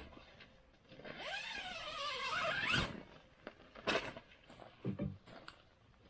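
A child's long squeal that wavers and then climbs sharply in pitch, followed by a few short knocks.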